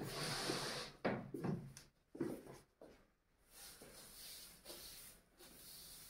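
Straw broom sweeping a laminate floor: several brushing swishes in the first couple of seconds, then softer, quieter strokes.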